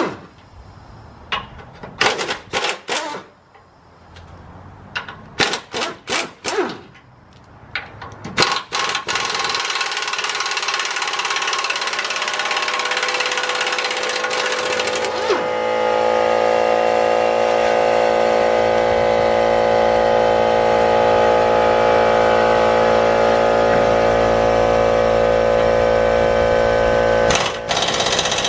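Pneumatic impact wrench rattling in short bursts as it works loose 17 mm hitch bolts, then running continuously for several seconds. From about fifteen seconds in, a steady machine drone with a low hum holds until near the end.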